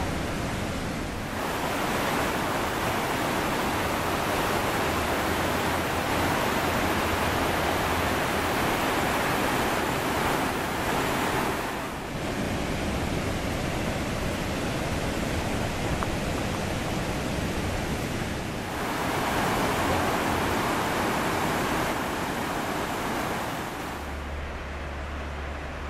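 Steady rushing of small waterfalls pouring over a limestone barrier into a lake. The rush shifts in tone and loudness a few times, and near the end it becomes quieter, with a low hum beneath it.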